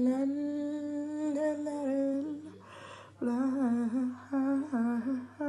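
A young man humming a tune with his mouth closed: one long held note of about two seconds, a short pause, then a run of shorter notes that bend up and down.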